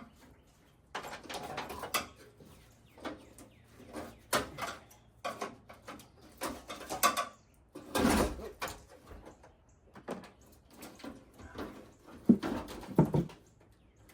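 Screwdriver prying at a pickup truck's front fender: irregular scraping, creaking and clicking as the panel and its fittings are worked loose, loudest about eight seconds in and again near the end.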